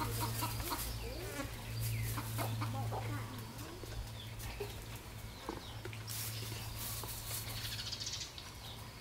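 Chickens clucking in the background over a steady low hum, with a short stretch of dry scratching through hair about six seconds in.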